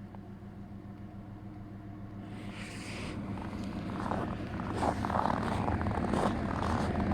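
Freight train hauled by a diesel locomotive approaching, the engine's low steady hum growing louder. From about four seconds in, the wheels' rattle and knocking on the rails builds up as it nears.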